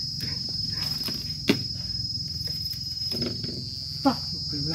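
Insects chirring steadily in one high, unbroken tone. About a second and a half in there is a single sharp knock, and a shorter, softer sound near the end.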